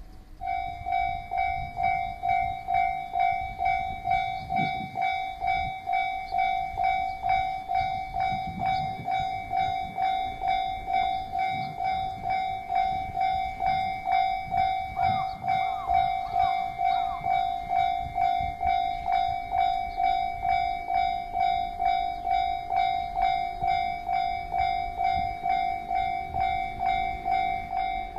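Japanese level crossing's electronic warning bell switching on just after the start and ringing steadily, one repeated ding about twice a second. It signals that a train is approaching the crossing.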